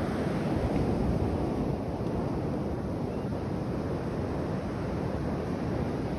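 Ocean surf washing onto a sandy beach, mixed with wind buffeting the microphone: a steady rushing noise heaviest in the low end.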